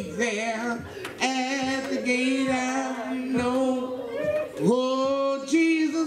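A woman singing a slow gospel solo, holding long notes with vibrato.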